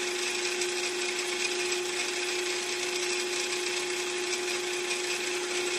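Hand-held drill running at a steady speed, spinning a fly cutter with a constant hum, as the cutter begins a light cut of about a thousandth of an inch.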